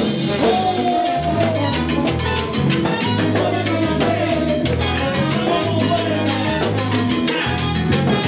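Salsa band playing, with a bass line moving in steady steps under even, driving drum and percussion strokes and melodic lines above.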